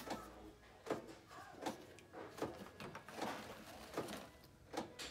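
Plastic media tray and housing of a Fluval FX4 canister filter being handled and lifted: a string of light knocks and clicks, about one a second.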